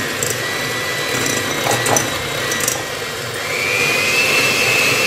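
Electric hand mixer running, its twin beaters whipping egg yolks with sugar in a plate. The motor's whine rises in pitch and gets louder about three seconds in, with a few faint clicks.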